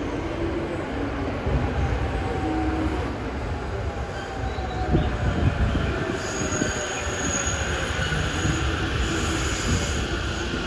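A commuter electric train pulls into the platform and brakes: a heavy low rumble of wheels on rail, with a motor whine that slides down in pitch. A high brake and wheel squeal comes in about six seconds in and lasts a few seconds.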